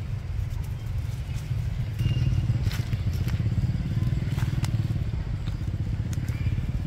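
A small engine running steadily, getting louder about two seconds in, with scattered sharp crackles and clicks over it.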